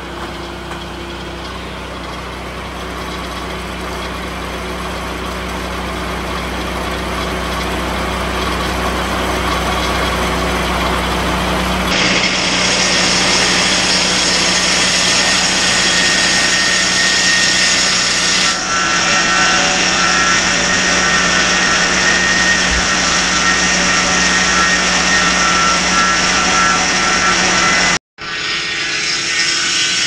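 Lucas Mill swing-blade sawmill running at full speed, its Kohler engine driving the circular blade through a log in a long steady cut. The sound shifts abruptly about twelve seconds in and again a few seconds later, and drops out for an instant near the end.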